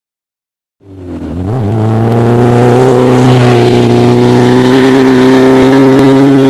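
Off-road race vehicle's engine running at high, steady revs, fading in about a second in and then holding one pitch.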